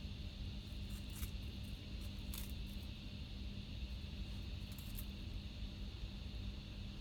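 Steady background hum with a high steady hiss, broken by a few brief scratchy clicks: one about a second in, one about two and a half seconds in, and a pair about five seconds in.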